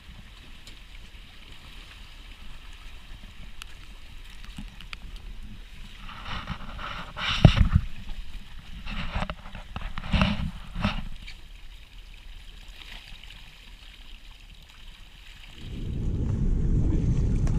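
A netted fish swung aboard a boat: a few seconds of splashing and knocking with two heavy thuds, about halfway through and a few seconds later, as the net and fish come over the side and hit the boat. Near the end, wind starts rumbling on the microphone.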